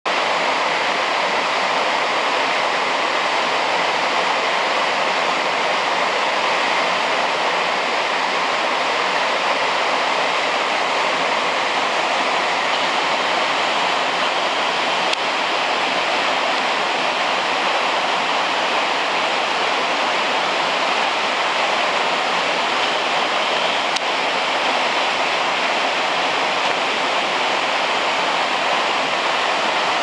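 Small waterfall cascading over stepped rock ledges: a steady, even rush of falling water.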